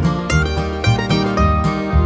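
Background music with plucked-string instruments over a steady, rhythmic bass line.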